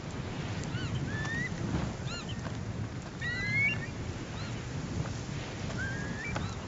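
Wild birds calling repeatedly, in short arched chirps and rising whistled glides, over a steady low rumble.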